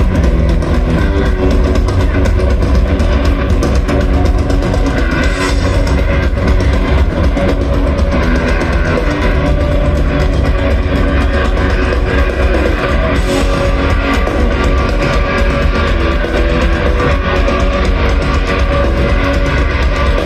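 Punk rock band playing live through a large festival PA: loud distorted electric guitars, bass and drums, heard from within the crowd with a heavy, booming low end.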